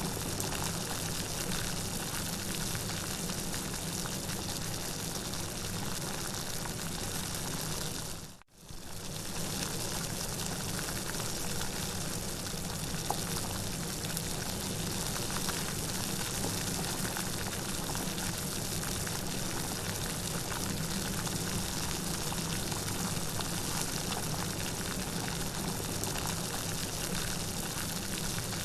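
Steady, heavy rain with an even hiss. It cuts out for a moment about eight seconds in, then comes straight back at the same level.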